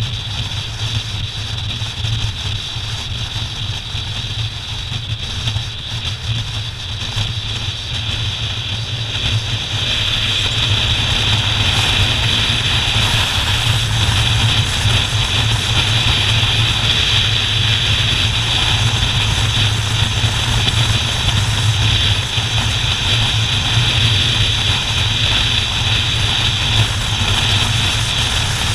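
Touring motorcycle running at road speed, a steady engine drone under constant wind rush at the mounted camera; it grows louder about ten seconds in and stays so.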